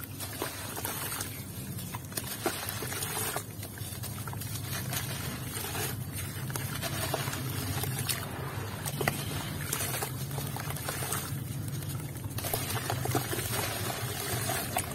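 A block of grainy dirt crumbled and squeezed by hand in shallow water: gritty crunching and scattered crackles as wet grains trickle and drip into the water.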